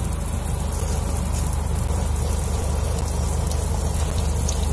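Water running steadily from a sink faucet, a continuous hiss with a low hum beneath it.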